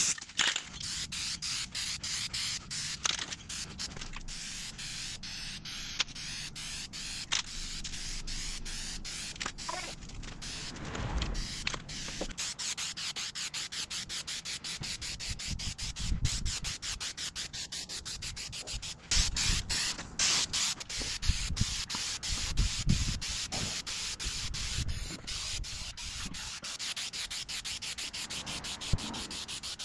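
Aerosol spray-paint can hissing as black paint goes onto a steel cabinet, in many short chopped bursts. A few low rumbles come in around the middle.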